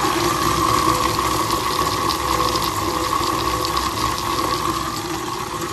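Automatic bead polishing machine running, wooden beads churning against its spinning sandpaper disc in a steady rushing swish with light clicking.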